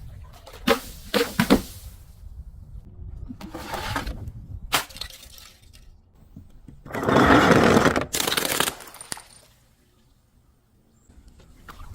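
A glass bottle and other brittle objects being crushed: a few sharp cracks near the start, a crackle and a snap a little later, then a loud crunching and shattering that lasts nearly two seconds before it stops.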